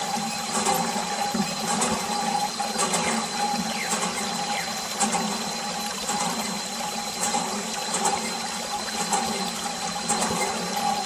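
Water streaming from a clear plastic tube and splashing onto toy tractors, fed by a mini water pump running steadily with a constant hum and a thin high whine.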